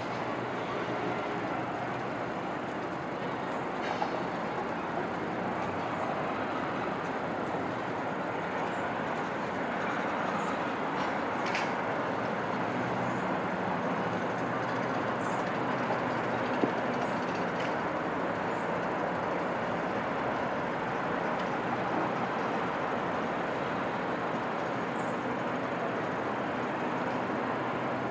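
Steady wash of distant city traffic and S-train rumble heard from high above the rooftops, swelling slightly about ten seconds in, with a few faint ticks.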